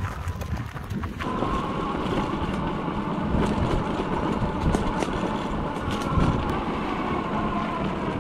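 Off-road electric dirt bike riding on a dirt track: a thin steady motor whine that drifts slightly up and down with speed, coming in about a second in, over wind buffeting the microphone and rumble and knocks from the tyres on the rough ground.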